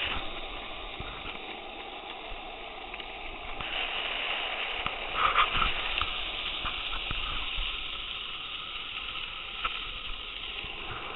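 Skateboard wheels rolling fast over asphalt, a steady hiss that grows louder for a couple of seconds about five seconds in.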